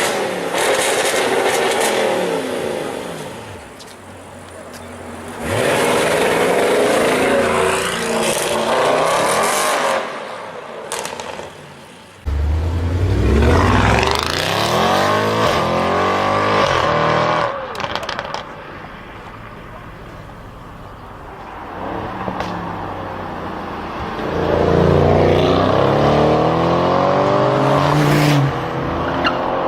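Audi RS6 C7 Performance's twin-turbo V8 through a Milltek exhaust, accelerating hard four times, the pitch climbing with each pull and quieter stretches between. A few sharp cracks come from the exhaust as the pulls end.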